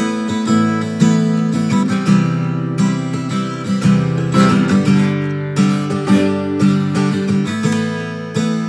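Solo acoustic guitar strumming and ringing chords of a country song, with a fresh strum every half second to a second.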